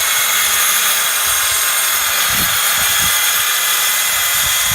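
Electric power saw running steadily with a high whine as it cuts through a timber board, finishing the cut.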